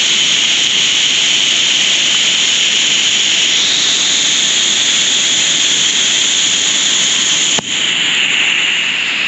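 Waterfall pouring down, heard from underneath it as a steady rush of falling water like white noise. It dips briefly and suddenly about three-quarters of the way through.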